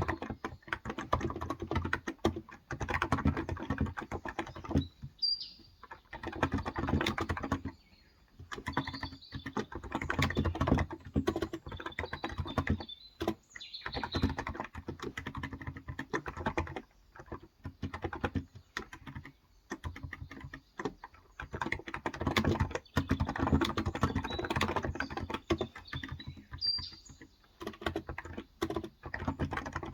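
Typing on a Cox Endeavor electro-capacitive (contactless) 35 g tenkeyless keyboard: dense runs of keystrokes broken by short pauses, with a few faint bird chirps in the background.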